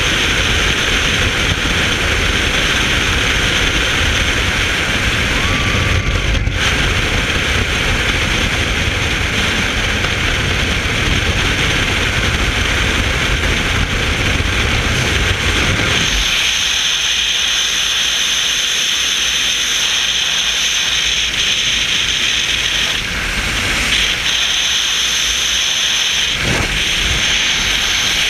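Freefall wind rushing over a helmet-mounted GoPro's microphone: a loud, steady roar and hiss. About sixteen seconds in, the deep rumble drops out, leaving a higher hiss.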